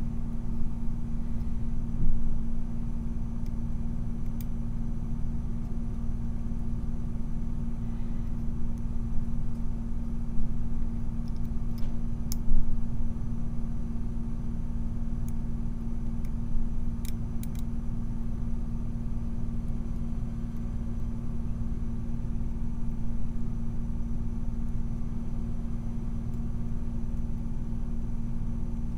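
A steady low hum and rumble, with a few faint, sharp clicks from a flag pick working the pins of a brass Yale six-pin dimple rim cylinder held under a tension wrench.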